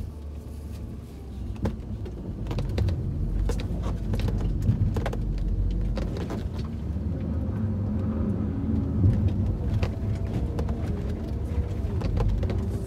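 BMW E46 driving slowly, heard from inside the cabin: a low engine and road rumble with frequent sharp knocks and clunks throughout.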